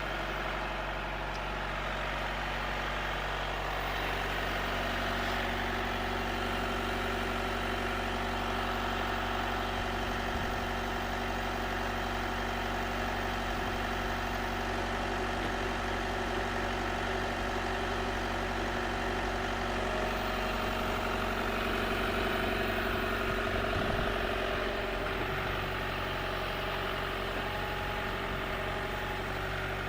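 A backhoe's engine idling steadily, slightly louder a little past the middle.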